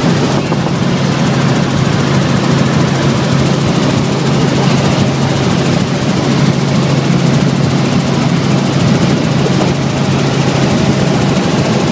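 Light helicopter in flight, heard from inside the cabin: the engine and rotor running steadily as a loud, even drone with a constant low hum.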